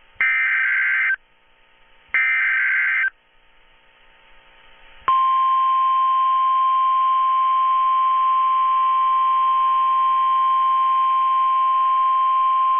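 Emergency Alert System tones. Two one-second bursts of the screechy digital SAME header data come about a second apart, then a single steady tone near 1050 Hz, the weather-radio warning alarm tone, starts about five seconds in and holds.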